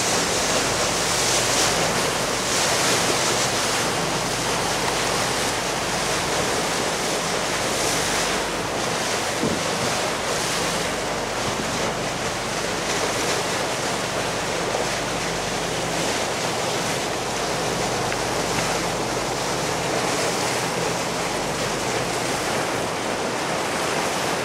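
Wind buffeting the microphone and water rushing past the hull of a fishing boat under way, with a low steady engine hum underneath.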